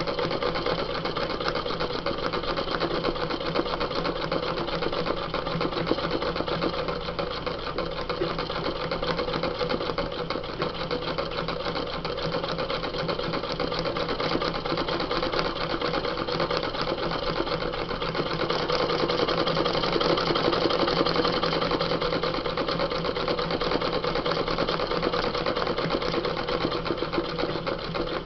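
Electric sewing machine running steadily at speed, its needle stitching through paper and denim in a fast, even chatter with no pauses. It gets a little louder about two-thirds of the way through.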